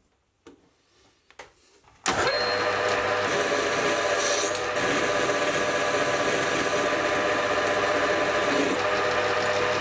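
Metal lathe starting up suddenly about two seconds in, after a few faint clicks, then running steadily with a hum of several level tones under a hiss while its carbide insert tool faces the end of a steel bar.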